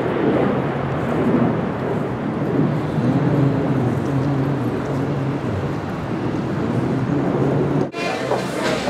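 Steady din of traffic, with a vehicle engine running. It cuts off sharply near the end and music begins.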